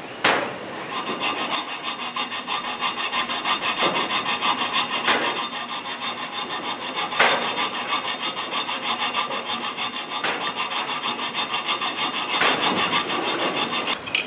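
A small round needle file being worked in quick back-and-forth strokes across the edge of a thin arrowhead made from a spoon, held in a vise, cutting a notch for the thread binding. The steel-on-metal rasping comes with a high metallic ring.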